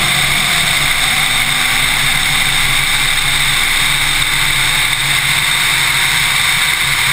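Race car's engine running at a steady pitch under a dense rushing noise, heard from a camera mounted on its hood; the engine note dips slightly about a second in, then holds steady.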